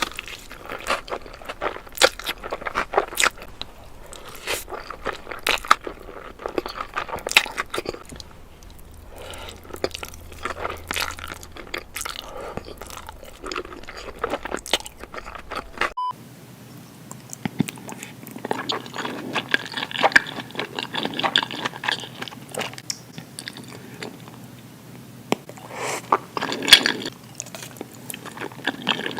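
Close-miked mukbang eating sounds: a person chewing and biting food, with many sharp, crunchy clicks. About halfway through, the sound changes abruptly as another eater's recording takes over, with denser, wetter chewing.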